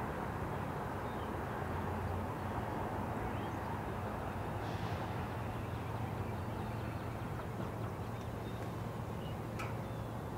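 Low steady rumble of a departing CN freight train, its diesel locomotives fading slowly into the distance, with a few faint bird chirps.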